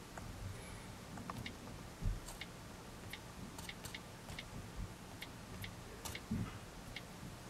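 iPad on-screen keyboard clicking as a password is typed: faint, short ticks at an irregular pace, one per keypress. There is a soft thump about two seconds in.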